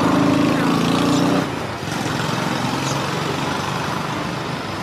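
A small motorbike engine runs loudly close by for about a second and a half, then drops away, leaving steady street traffic noise.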